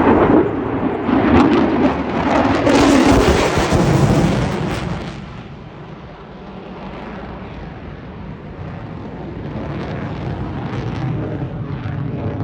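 F-35 fighter jet's single turbofan engine, loud with a crackle as it flies past, fading about five seconds in and then slowly building again near the end as the jet comes back round.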